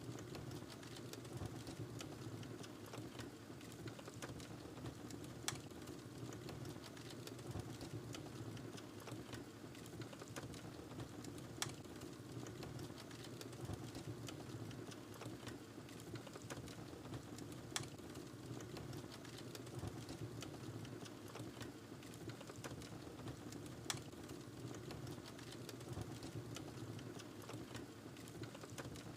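Wood fire crackling in a fireplace: a steady low rush with many small crackles and a sharper pop about every six seconds.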